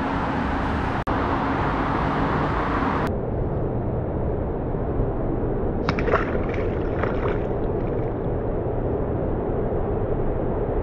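Steady roadway traffic noise, with a small splash of something dropping into the canal water about six seconds in.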